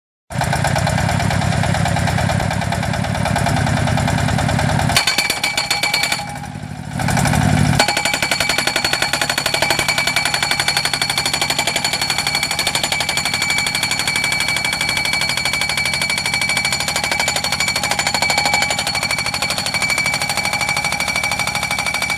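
Guardrail pile driver's hammer striking a post with rapid, even blows. The hammering drops away briefly about six seconds in, then resumes.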